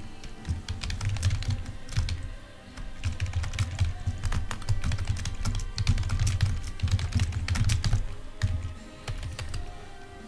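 Typing on a computer keyboard: quick runs of key clicks with a short pause about two and a half seconds in, thinning out near the end, over faint background music.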